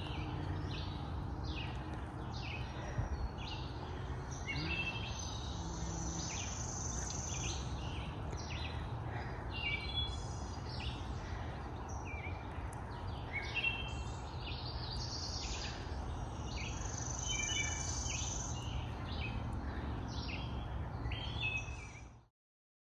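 Several songbirds chirping and trilling over a steady low rumble; the sound cuts off abruptly near the end.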